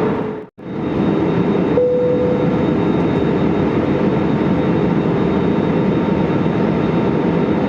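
Steady cabin noise of an Airbus A320neo in flight: engine drone and airflow with a steady hum. It cuts out briefly about half a second in, and a slightly higher hum comes in just under two seconds in.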